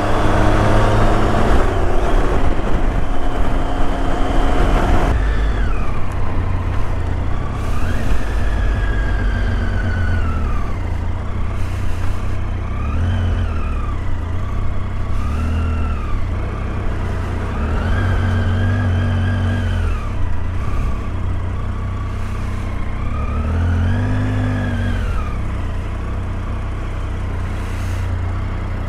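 Motorcycle engine under way: a steady note for the first few seconds, then the revs rise and fall again and again as it speeds up and eases off.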